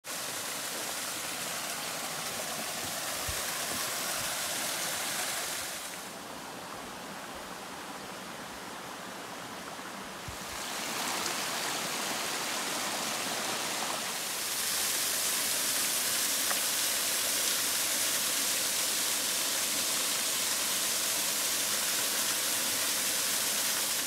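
Waterfalls spilling over travertine into pools make a steady rush of water. It drops quieter about six seconds in, comes back up near ten seconds, and is fullest in the second half.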